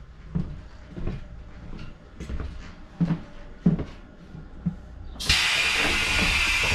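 Footsteps at an even walking pace, then a loud steady hiss that starts suddenly about five seconds in.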